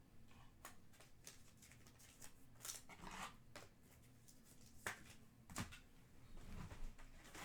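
Faint, scattered rustles and clicks of trading cards and their packaging being handled and sorted by hand.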